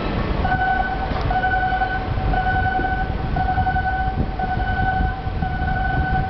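Crane warning alarm sounding a steady high tone that starts about half a second in and holds with small breaks about once a second, over a low rumble.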